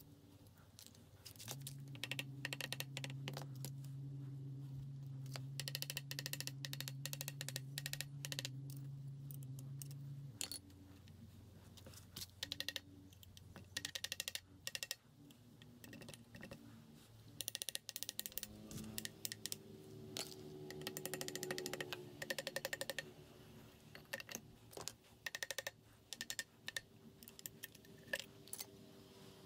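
Light metallic clicks, taps and clinks of hand tools and parts on a dismantled Honda XL250 engine as it is worked apart by hand, scattered irregularly. A steady low hum runs under the first ten seconds and then stops.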